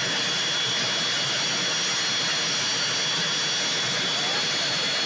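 Aircraft turbine engine running steadily at idle on the ground: a constant rush with a steady high-pitched whine.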